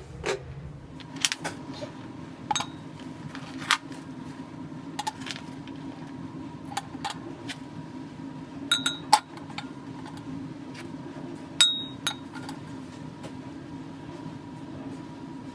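Rusty steel bolts set down one at a time in an empty glass beaker, making a series of sharp, irregularly spaced clinks against the glass and each other, some with a brief glassy ring. A steady low hum runs underneath.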